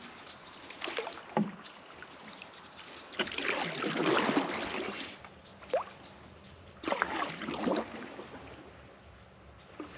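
Wooden canoe paddle pulling through calm water: a swish and splash with each stroke, the main strokes about three and about seven seconds in, with small drips and splashes between.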